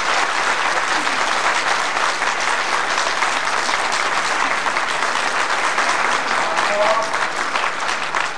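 A large hall audience applauding steadily, a dense patter of many hands clapping. A man's voice comes in near the end.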